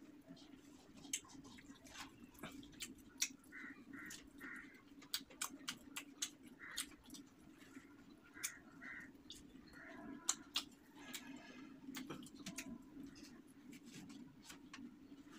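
Quiet hand-eating sounds: chewing, lip smacks and sharp wet clicks as rice and fish are eaten by hand off a banana leaf. A steady low hum runs underneath, and short bird calls come in small groups several times.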